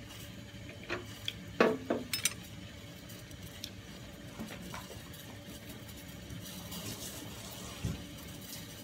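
Scattered clinks and knocks of kitchen utensils and dishes, the loudest about a second and a half in with a short ringing after it, then a few lighter taps spread through the rest.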